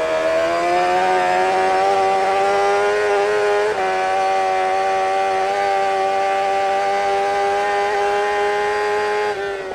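An engine held at steady high revs: a high-pitched, even drone that climbs slightly at the start, dips briefly about four seconds in, and fades near the end.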